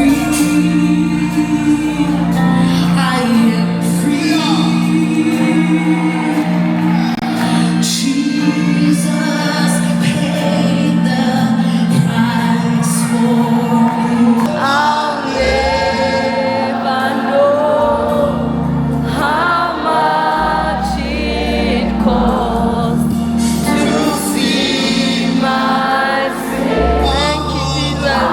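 Gospel worship music: voices singing with wavering, held notes over sustained low chords.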